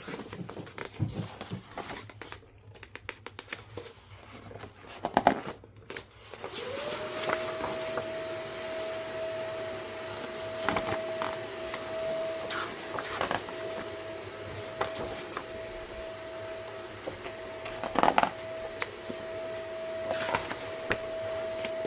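Small clicks and rustles of items being handled, then about six seconds in a steady machine whine starts, rising briefly in pitch before holding level, with occasional sharp clicks over it.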